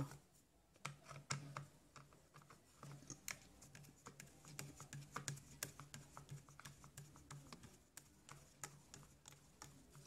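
Faint, irregular small clicks and ticks of a screwdriver turning out the small screws that hold a circuit board inside a plastic Bluetooth speaker casing.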